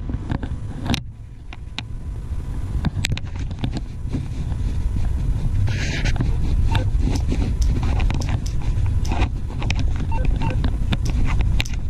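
Rumble of a moving vehicle picked up by an action camera's microphone, with scattered clicks and rattles and a short hiss about six seconds in.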